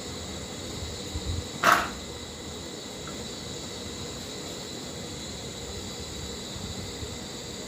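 Steady outdoor background noise with a constant high-pitched insect-like drone, a few low thumps, and one short sharp knock at about one and a half seconds that is the loudest sound.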